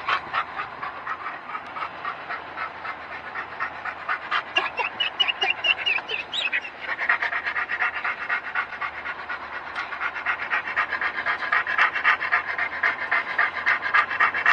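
A dog panting rapidly and steadily, about four breaths a second, inside a moving car, with a brief high, wavering whine about five seconds in.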